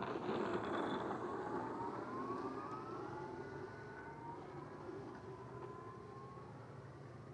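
Custom four-hub-motor electric RC speed car launching and accelerating away: its motors' whine rises in pitch over several seconds over a rushing noise, fading as the car recedes.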